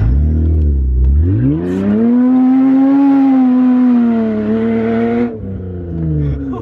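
Gutted Mitsubishi Eclipse's engine revving hard while driving through mud: the revs dip, then climb steeply about a second in, hold high for about three seconds, and drop off suddenly when the throttle is released, with a falling tone after.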